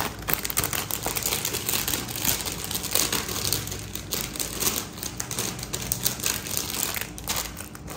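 Clear plastic jewellery packets crinkling as they are handled, a dense run of small crackles and ticks.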